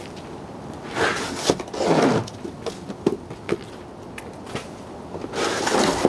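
Scattered knocks and rubbing, like a camera being handled, with two louder scraping rushes, one about a second in and one near the end. No bell is heard.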